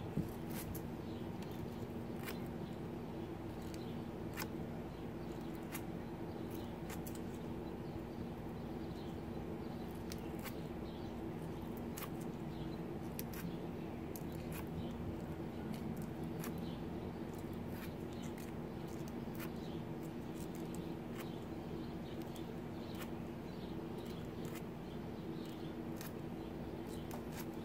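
Sandpaper scraping the corrosion off the end of a stranded copper wire, heard as scattered small scratches and clicks. Under it a steady low hum.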